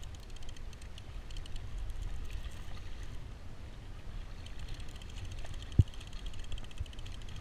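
Water lapping and rushing against a plastic sit-on-top kayak's hull as a hooked fish tows it through the chop, with wind rumbling on the microphone. Light rapid ticking comes in over the second half, and a single sharp knock sounds near the end.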